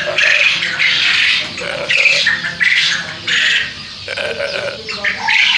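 A flock of young quail in a shed calling loudly, a run of harsh, squawking calls repeated several times a second and overlapping.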